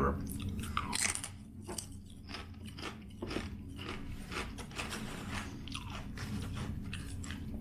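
A bite into a ridged potato chip loaded with ranch dip, then a run of crisp, irregular crunches as it is chewed.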